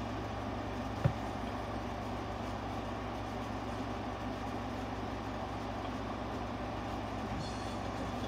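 Steady low hum with even background noise, broken by a single sharp click about a second in.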